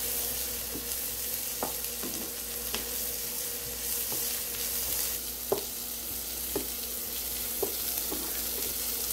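Chopped onions sizzling in hot oil on a flat dosa tawa, with a wooden spatula scraping and tapping against the griddle about once a second as they are stirred.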